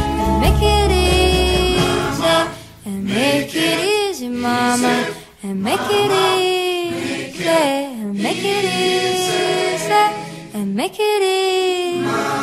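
Music: a solo voice sings a slow melody of long held notes, sliding between pitches, with no words picked out. The low accompaniment drops out about two seconds in, leaving the voice almost alone.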